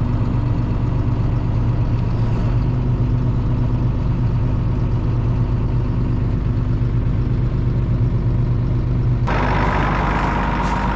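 Tractor engine running steadily at a low hum. About nine seconds in, a louder hiss and a steady higher whine come in suddenly.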